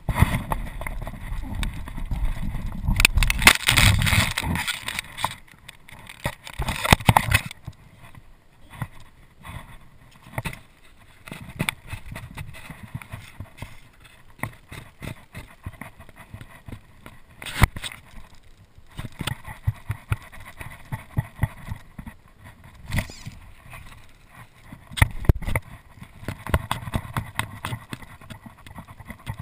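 Handling noise on a kayak: a jacket sleeve brushes over the mounted camera during a fly cast, giving loud rubbing with a low rumble for the first several seconds. After that come scattered sharp clicks and knocks with light rustling between them.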